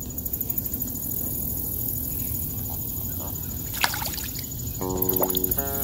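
Shallow water sloshing and splashing as a small channel catfish is released by hand at the bank's edge, with one sharp splash about four seconds in. Plucked guitar music comes in near the end.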